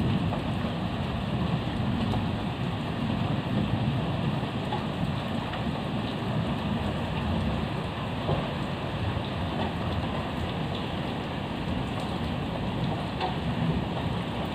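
Heavy rain falling steadily, with a low rumble underneath and occasional drops ticking.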